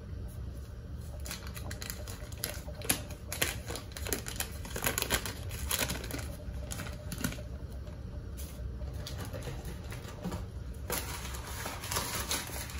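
Paper wrapper of a stick of butter crinkling as it is unwrapped: irregular light clicks and rustles that come in short clusters.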